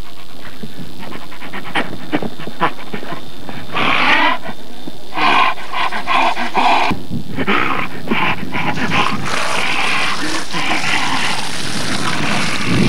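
Alaskan malamute vocalizing in a series of short bursts, loudest about four seconds in and again a second later, with scattered clicks between them.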